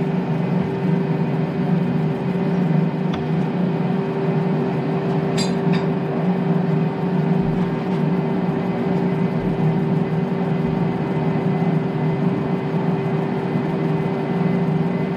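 Metal lathe running with a long Model T driveshaft spinning in the chuck, unsupported by a steady rest: a steady hum and whir. A couple of light metallic clinks come a few seconds in.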